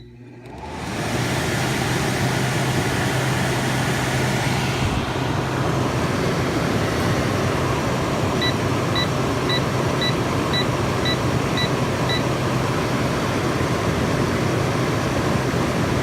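Frigidaire 8000 BTU window air conditioner's fan spinning up over about a second and then running steadily with a low hum, its compressor not yet running. Around the middle come eight short electronic beeps about half a second apart, from the unit's control panel.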